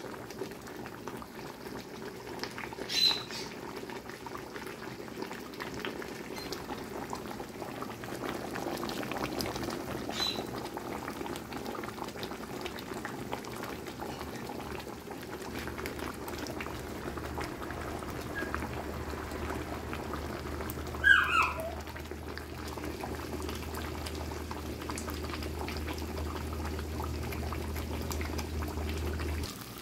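Beef steak in a thick sauce simmering in a frying pan on a gas stove, bubbling steadily. A low hum comes in about halfway, and about two-thirds of the way in a short high sound slides down in pitch, the loudest moment.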